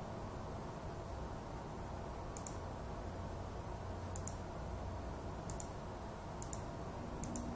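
Computer mouse button clicks, about five, each a quick double click of press and release, spaced a second or so apart over a low steady hum.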